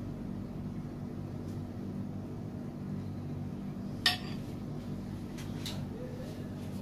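A metal spoon clinks once, sharply, against a glass bowl of custard about four seconds in, with a few fainter ticks after it, over a steady low hum.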